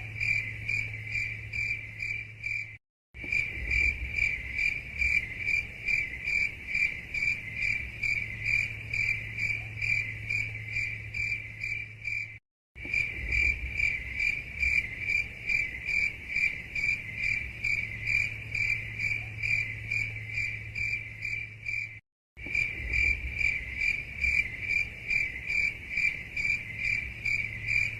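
Recorded cricket chirping in a steady, rapid, even pulsing trill over a low steady hum. The recording loops, cutting out for a split second three times, about every nine and a half seconds.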